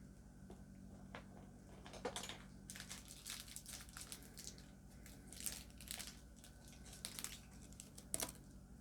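Plastic packaging crinkling and rustling in irregular bursts as makeup brushes are handled and pulled out, over a faint steady low hum.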